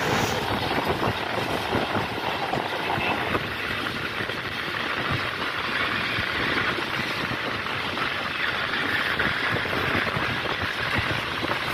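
Passenger train running at speed, heard from aboard: a steady rush of wheel-on-rail and wind noise.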